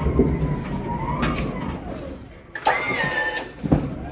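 A siren wails slowly up and down over a low engine rumble, which fades about two and a half seconds in. Then comes a sharp click with a briefly held higher tone, and another click about a second later.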